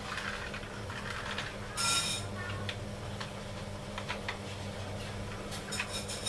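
Plastic toy trucks handled and pushed on a tiled floor: scattered light clicks and rattles, with a short, louder burst about two seconds in, over a steady low hum.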